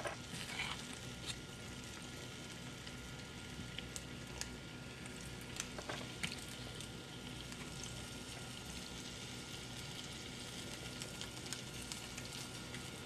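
Spoonfuls of donut batter frying in hot oil, a faint steady sizzle, with a few sharp clicks of a metal scoop against a steel mixing bowl.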